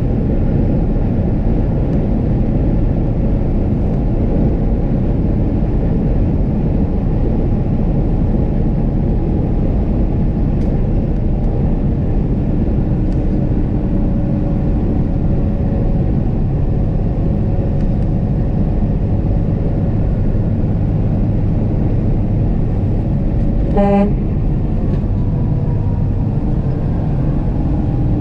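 Steady drone of a Peterbilt rollback tow truck's diesel engine and road noise, heard inside the cab at highway speed. Near the end comes one short blast of an air horn.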